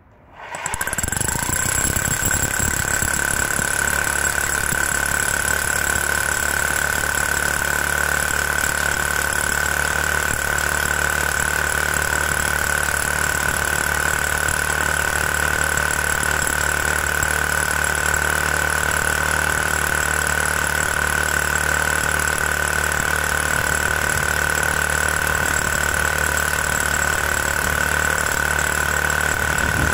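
Parkside Performance PPBH 1600 A1 SDS-Max hammer drill starting about half a second in, then hammer-drilling steadily into granite with an 18 mm bit at its highest setting. A steady high whine runs over the hammering.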